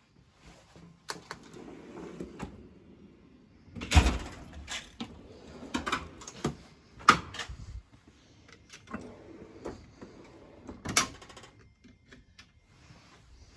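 Steel Snap-on tool chest drawers sliding on their runners and shutting, with several sharp metal knocks, the loudest about four, seven and eleven seconds in.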